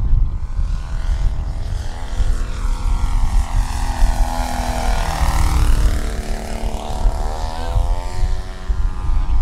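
Propeller-driven RC scale model airplane of a Van's RV-4 flying a low pass: the engine note drops in pitch as it goes by about halfway through, then rises again near the end. A heavy low rumble of wind on the microphone runs underneath.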